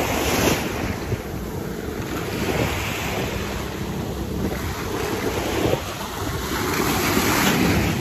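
Small sea waves breaking and washing up the shore, surging louder a few times, with wind buffeting the microphone.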